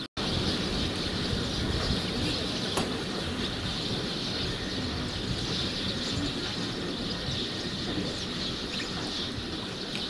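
Steady outdoor background noise, a low rumble with an even hiss, with a few faint bird chirps. The sound drops out for an instant at the very start.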